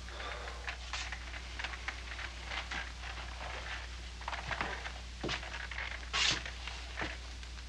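Small handling noises, scattered rustles, light clicks and taps, over a steady low hum, with a brief louder rustle about six seconds in.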